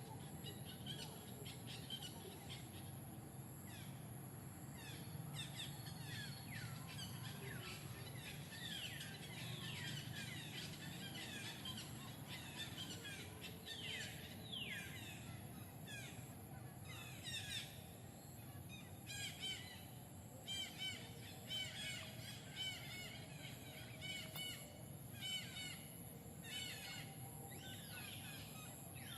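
Birds chirping: many short, high calls overlapping, in more distinct clusters in the second half, over a steady low background rumble.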